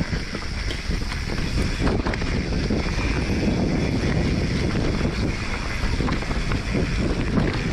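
Wind buffeting the microphone and a Polygon Siskiu T7 mountain bike's tyres rolling fast over a dirt trail, with scattered knocks and rattles from the bike over bumps and roots.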